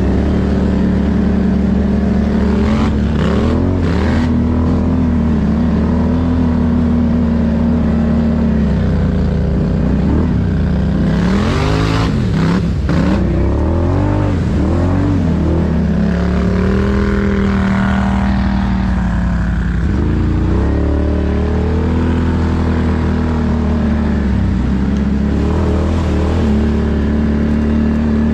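ATV engine running under varying throttle on a trail ride, its pitch rising and falling with speed. About twelve seconds in, the engine note dips and climbs again under a brief rush of hiss.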